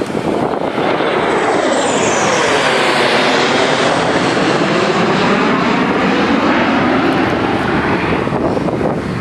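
Four Thunderbirds F-16 fighter jets flying over in formation, a loud jet roar that builds about a second in. A high whine drops in pitch around two seconds in, and the roar swirls and phases as the jets pass, easing off near the end.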